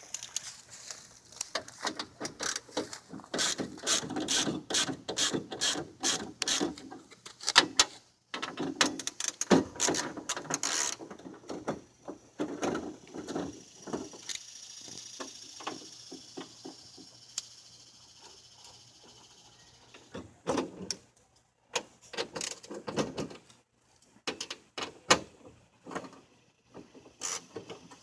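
Quick clicks, knocks and rattles of hands and tools working on a car door's inner panel and window regulator housing. It comes in two busy spells with a quieter stretch in the middle.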